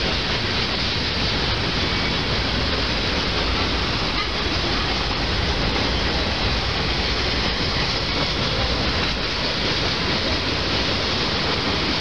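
Cars of a long Union Pacific freight train rolling past, steel wheels running on the rails in a steady, even noise.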